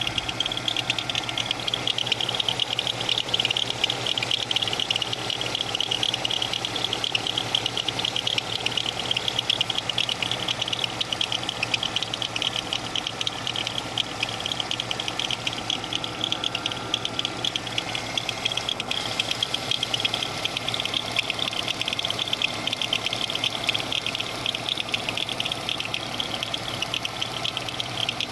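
GM 3400 3.4-litre V6 engine running at a steady idle, with a fast, even ticking rattle from a bad, broken power steering pump pulley.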